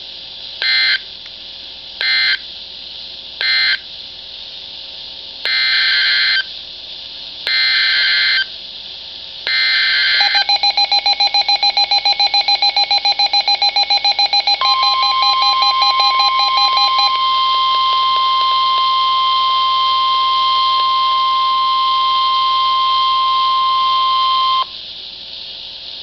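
NOAA Weather Radio Emergency Alert System tones: three short SAME data bursts that close the previous warning, then three longer SAME header bursts for a new tornado warning. From about ten seconds the weather radio beeps rapidly. From about fifteen seconds the steady 1050 Hz NWS warning alarm tone sounds, and it cuts off about a second before the end.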